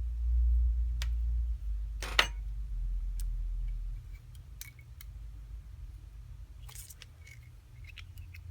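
Small repair tools clicking and scraping against the parts of an iPhone 4S being taken apart: scattered sharp clicks, the loudest a short scrape about two seconds in, over a low rumble that stops about four seconds in.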